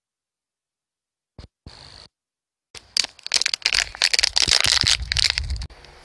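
Almost three seconds of dead silence broken by two short blips, then about three seconds of loud, close crackling and rustling with low thumps, ending suddenly.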